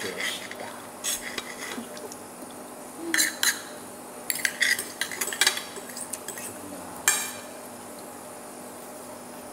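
Metal knife and fork clinking and scraping against a ceramic plate while cutting food, in irregular short clusters, the sharpest clink about seven seconds in.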